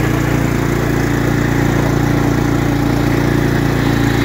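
Engine of a Cub Cadet XT1 42-inch riding lawn mower running steadily while the mower is driven.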